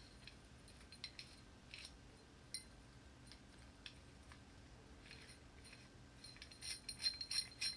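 Cast-iron gears of a Buffalo Forge hand-cranked blower clinking as they are turned by hand. Scattered faint metallic clicks build into a quick run of clinks near the end.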